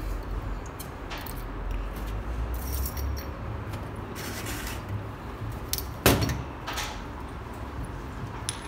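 Small steel parts of a diesel injection pump, its coil springs and spring seats, clinking and jingling as they are handled, with a sharp knock about six seconds in. A low steady hum runs underneath.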